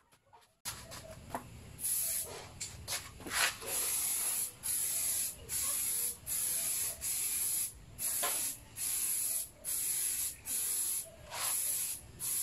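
Aerosol spray-paint can hissing in short repeated bursts, about one a second, with brief gaps between passes: spray-painting a motorcycle gas tank. A few light clicks come just before the spraying starts.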